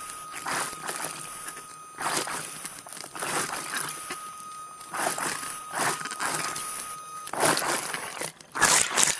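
Underwater: scuba exhaust bubbles rushing past the camera housing in repeated bursts every second or two, over a steady thin whine from the diver propulsion scooter that stops about seven seconds in.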